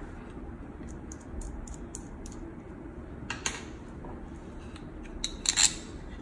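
Light clicks and taps of a threaded metal inductive sensor and a 3D-printed plastic jig being handled and fitted together. There is a sharper click about three and a half seconds in and a cluster of clicks near the end.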